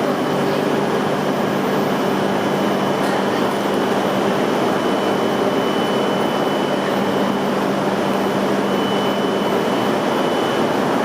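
E5-series Shinkansen train at the platform giving off a steady hum and whir with a few steady tones held through it.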